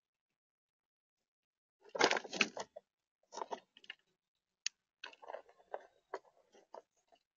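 Gray squirrel chewing and crunching acorns close to the microphone, with acorns shifting in the plastic tub as it moves. A dense burst about two seconds in, then scattered crunches and clicks.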